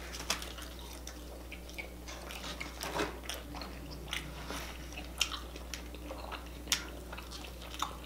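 Close-miked chewing and biting of pizza: scattered short wet mouth clicks and smacks, with a steady low hum underneath.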